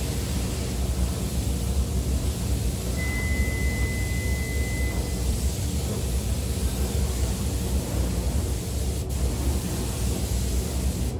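Steady rushing air noise with a strong low hum, from a paint spray booth's ventilation and a compressed-air spray gun spraying glass coating. A thin, high steady tone sounds for about two seconds, about three seconds in.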